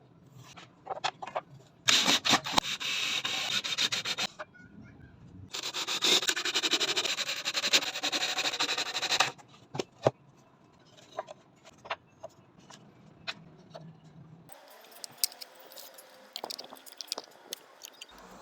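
Two stretches of rubbing and scraping, one about two seconds long and one about four, followed by scattered light clicks and knocks, from woodworking clamps and wood pieces being worked by hand.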